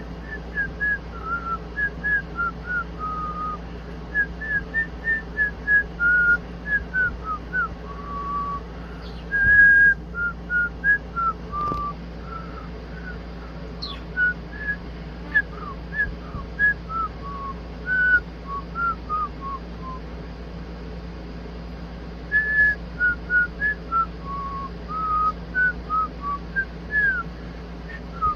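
A simple tune whistled in short, clear notes, phrase after phrase with brief pauses, over a steady low hum.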